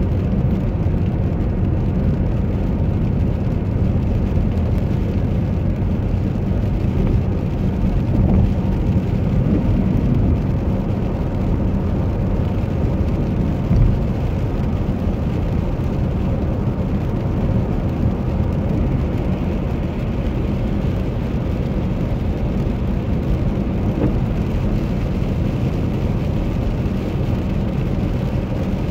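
Steady road noise inside a moving car on a rain-soaked highway: tyres on wet pavement and the car's running, heard through the cabin.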